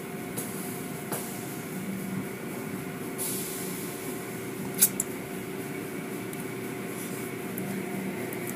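Automatic car wash machinery running: a steady hum of motors with a few held tones, water and cloth wash strips working over a truck, a short hiss of spray about three seconds in and a sharp click near the middle.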